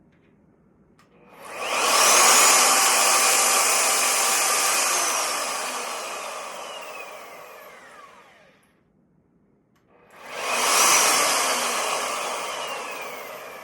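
Skil electric router motor switched on twice, each time spinning up to full speed with a high whine, then coasting down with a long falling whine after it is switched off. It is a brief no-load test run of a new router.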